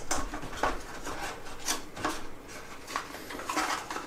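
Small cardboard box being opened by hand: the white card sleeve rubs and scrapes in a string of short, irregular strokes as the item inside is slid out.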